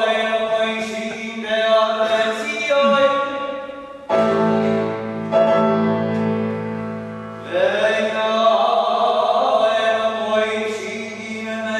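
A cantor singing in a full, operatic voice with vibrato, accompanied by a grand piano. About four seconds in the piano strikes a new sustained chord and the voice rests briefly, then comes back in strongly.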